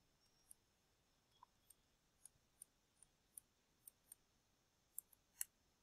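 Near silence broken by about a dozen faint, sharp clicks at irregular intervals, the loudest two near the end: a stylus tip tapping and dragging on a tablet screen during handwriting.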